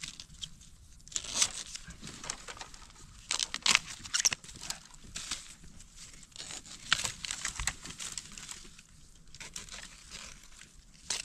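Dry bamboo leaves and papery culm sheaths crackling and rustling in irregular bursts as hands work at the base of a wild bamboo clump to get at a shoot.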